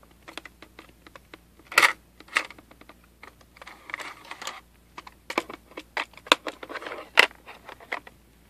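Sharp plastic clicks and knocks from a Pioneer car cassette head unit being handled: buttons and the front panel pressed, and a cassette slid scraping into the tape slot about four seconds in.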